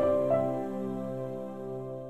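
Short musical logo sting: a soft chord of held notes, with one more note coming in about a third of a second in, then ringing on and slowly fading away.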